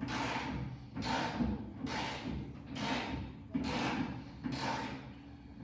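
Hand ratchet wrench working a rusty fender bolt back and forth, a rasping stroke about once a second, six times.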